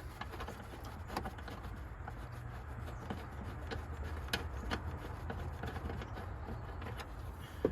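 Scattered light clicks and scrapes of hand work on a truck's battery tray bolts, over a steady low hum.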